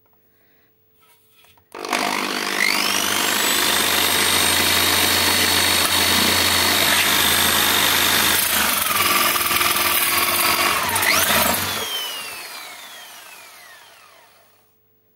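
Electric drill boring a hole through the bottom of a thin plastic bucket. The motor whines up to speed about two seconds in and runs steadily while the bit cuts. Its pitch drops partway through, rises sharply, and then the drill is let go and winds down with a falling whine.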